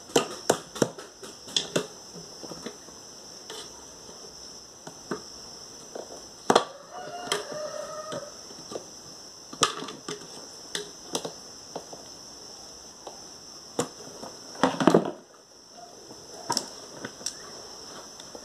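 Irregular clicks and knocks of steel pliers against a spin dryer's metal motor and housing as a rubber motor mount is forced into place, with a louder clatter about fifteen seconds in.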